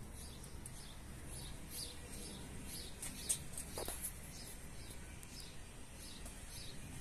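Small birds chirping faintly in the background, with many short, high chirps a few times a second. There is a single soft click about three seconds in.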